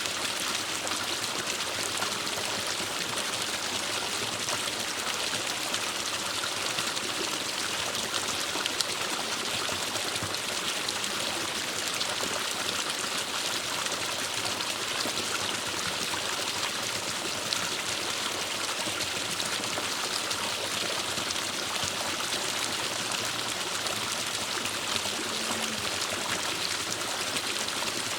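Forest stream flowing over rocks: a steady rush and trickle of water that holds even throughout.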